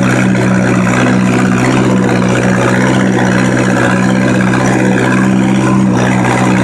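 1949 Massey-Harris 22 tractor's four-cylinder engine running at a steady speed as the tractor drives along, with no change in pitch or level.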